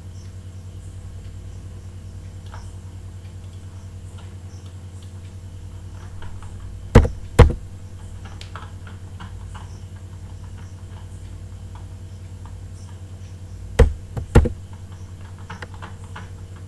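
Computer mouse clicking: two pairs of sharp, loud clicks about seven and fourteen seconds in, with fainter ticks around them, over a steady low hum.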